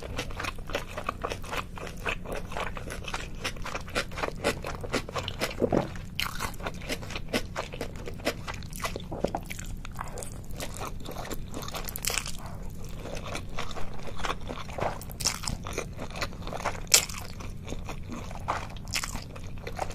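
Close-up crunching and chewing of food: many quick, irregular crunches as crisp food is bitten and chewed.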